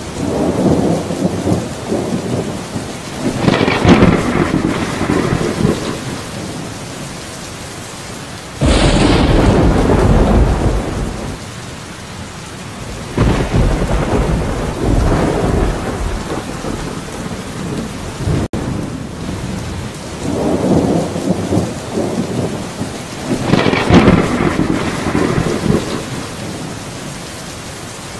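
Steady heavy rain with repeated thunder. Long rumbles swell and fade several times, and a sudden loud clap breaks about eight and a half seconds in, then rolls off over a few seconds.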